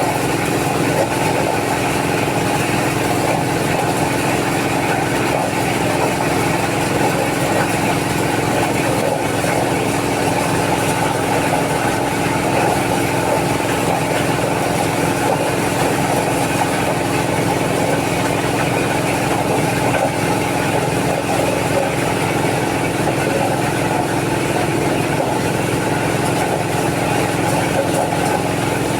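Engine-driven corn sheller running steadily.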